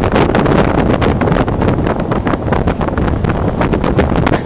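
Strong wind buffeting the microphone: a loud, rough, unsteady rumble with constant crackling gusts.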